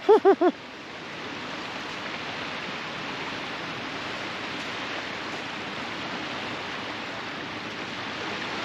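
Steady rushing noise of sea surf and wind along a shoreline, swelling in about a second in and holding even.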